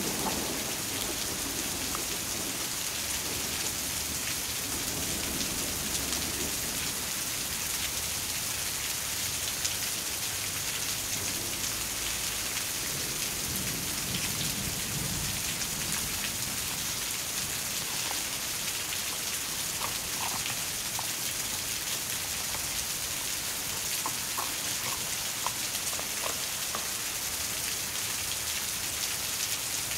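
Steady rain falling, an even hiss with no break, with a few faint light ticks in the second half.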